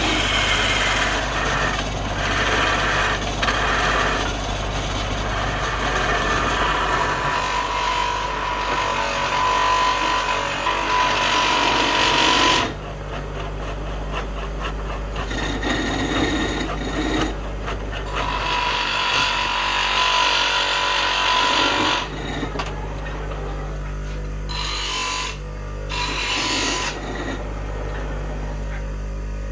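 A power tool working wood: a steady motor hum under rasping, scraping noise from the tool cutting or sanding the wood. The noise comes and goes in stretches and drops sharply about halfway through.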